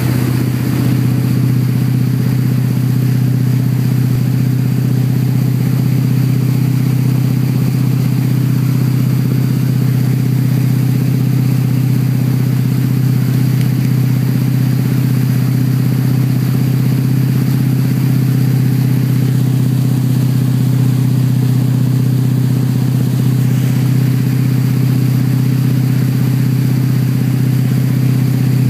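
Tow boat's engine running steadily at about 10–11 mph while pulling a wakeboarder, with the hiss of the churning wake over it.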